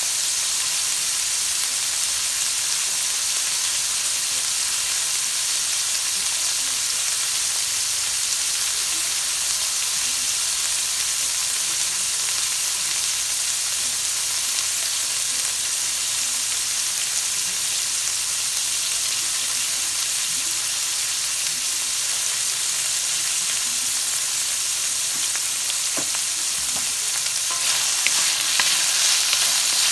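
Asparagus sizzling in oil in a wok, a steady frying hiss. Near the end a wooden spatula starts stirring it, and the sizzle grows louder, with scraping and light knocks.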